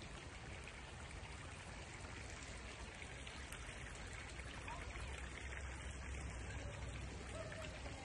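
Garden pond fountain splashing: a steady hiss of water spraying up and falling back onto the pond, with a low rumble underneath.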